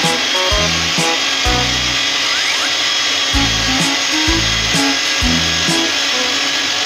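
Hand-held electric paddle mixer running steadily, its paddle churning a liquid batch in a drum. Background music with a steady beat plays over it.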